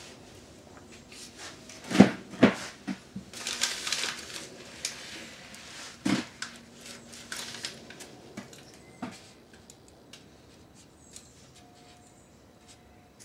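Hands handling a small knife and a potted apple tree during grafting work: two sharp knocks about two seconds in, rustling around four seconds, another knock near six seconds, then lighter clicks.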